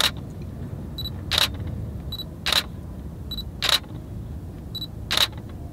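DSLR camera taking a quick series of photos: five sharp shutter clicks about a second apart. Each of the last four is preceded by a short high beep, the camera's focus-confirmation beep.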